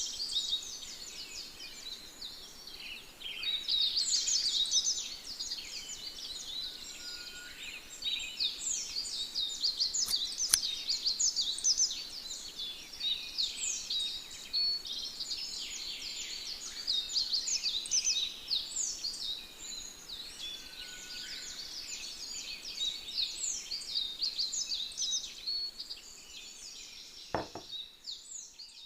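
A dense chorus of many small birds chirping and twittering without a break. There is a single sharp click about ten seconds in, and a low knock just before the sound fades out at the end.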